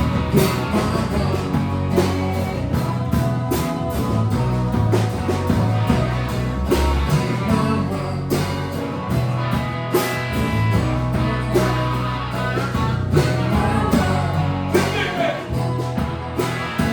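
Live band playing a blues-rock song: guitar, bass and drum kit, with drums keeping a steady beat.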